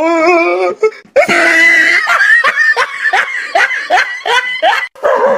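A person laughing hard: a wavering held note, then from about a second in a long string of quick, rhythmic bursts.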